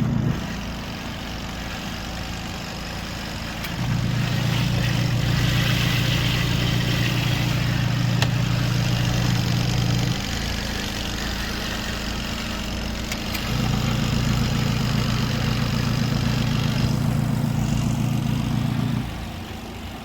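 Electric motor of a portable twin-tub washing machine running with a steady hum, which grows louder for several seconds at a time, then drops back, twice.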